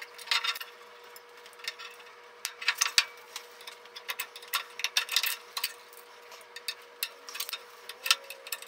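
Steel scribe scraping and clicking against the edge of a flat washer and a steel flat bar as it scores a corner-radius line, with small metal clinks from the clamped vise grips and washer. Short irregular scratches and ticks, over a faint steady hum.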